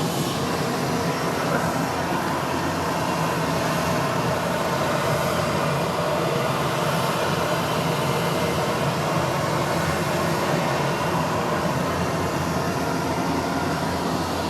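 A steady mechanical drone with a faint hum in it, holding at an even level without rising or falling.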